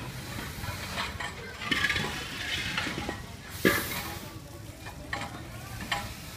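Gas hissing from cylinder hoses as balloons are filled, with scattered clicks and one sharp knock about three and a half seconds in.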